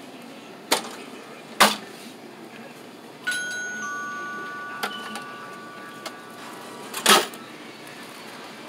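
A two-note ding-dong chime, a higher note then a lower one, both ringing on and slowly fading, heard midway. Around it, sharp single knocks: two in the first couple of seconds and a louder one near the end.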